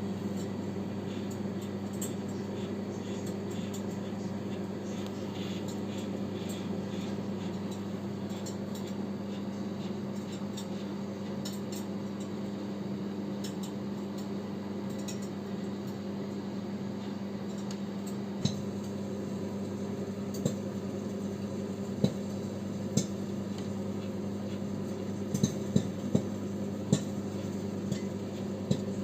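Microwave oven running on full power with a steady hum while popcorn kernels pop inside covered ceramic bowls. The pops are faint and scattered at first, then sharper and louder, one every second or two, from about two-thirds of the way in: the popcorn is getting into full popping.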